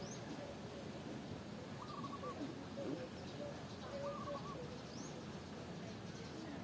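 A bird calling repeatedly, a short phrase of a few notes about every two seconds, over a steady background hiss, with fainter short chirps and calls besides.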